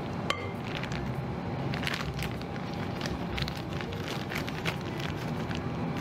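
Plastic piping bag crinkling and a spatula scraping as whipped meringue is loaded into the bag: irregular light clicks and rustles over a steady low background hum.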